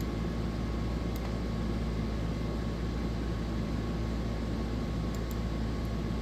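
Steady low hum with a hiss over it, like a fan or room machinery running, with a few faint ticks.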